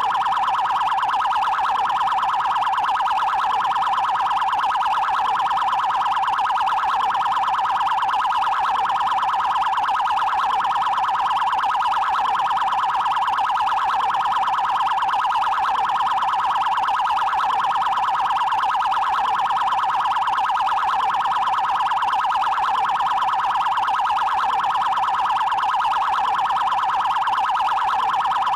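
Brazilian Federal Highway Police (PRF) siren sounding its 'prioridade' trail tone: a high tone near one fixed pitch, pulsing very fast and evenly, at a steady loudness throughout.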